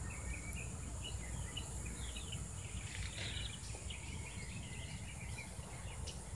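Faint outdoor ambience: small birds chirping over and over, over a steady high-pitched insect drone and a low rumble.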